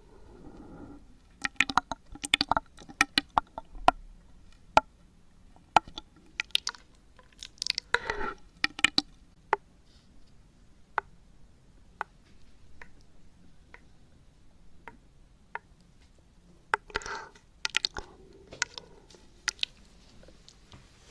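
Close-miked ASMR mouth sounds: a run of sharp, wet clicks and smacks, with short breathy puffs about eight seconds in and again near the end.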